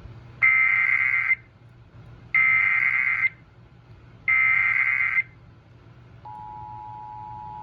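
Emergency Alert System SAME header: three bursts of digital data tones, each about a second long and about a second apart. A little after six seconds in, the steady two-tone EAS attention signal (853 and 960 Hz) starts.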